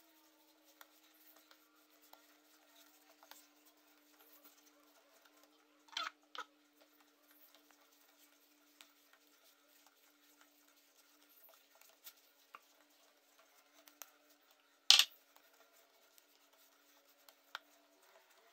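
Hands kneading bread dough on a counter: faint scattered pats and taps, with two sharper knocks about six and fifteen seconds in. A faint steady hum runs underneath and stops near the end.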